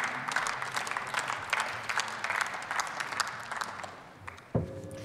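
Applause in a parliament chamber: many people clapping, the claps thinning out and fading after about four seconds, then a single click near the end.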